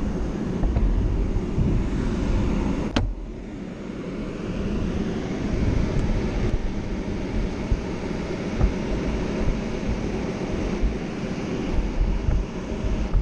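Steady low outdoor rumble, mostly wind buffeting the microphone, with a single sharp click about three seconds in, after which the rumble drops a little.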